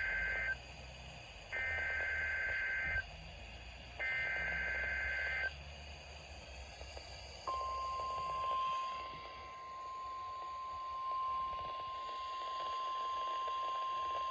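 NOAA Weather Radio test tones over a receiver's speaker. First come three short bursts of the SAME header's two-tone digital warble, then, about seven seconds in, the steady 1050 Hz warning alarm tone starts and holds.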